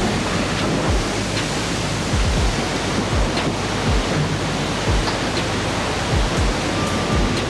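Steady rushing, splashing water as a subway car slides off a barge into the sea, under background music with a low beat about once a second.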